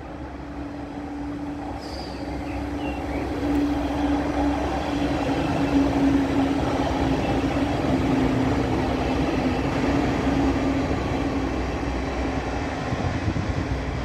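Passenger multiple-unit train passing through a station on the far track, its rolling noise swelling and then holding, with a steady motor hum that sinks slightly in pitch. A few sharp wheel clicks over the rails come near the end.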